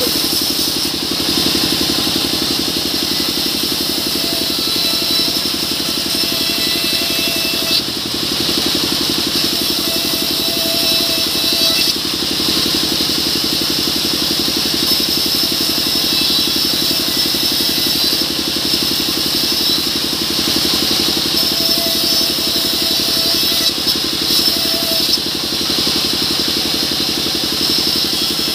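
Vertical band saw ripping mahogany slabs: the mill's drive runs with a steady, fast-pulsing drone under the hiss of the blade in the wood. A short whine comes and goes several times as boards pass through the blade.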